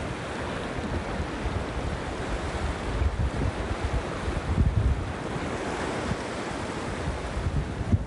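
Ocean surf: small waves breaking and washing up the sand around a shoreline rock, with wind buffeting the microphone in gusts that swell about halfway through.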